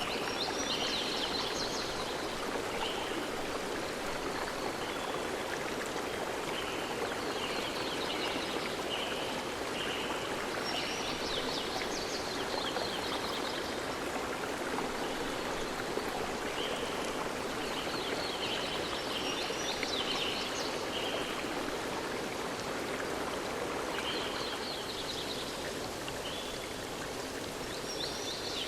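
River water flowing steadily with an even rush. Over it, clusters of short high-pitched calls recur every few seconds.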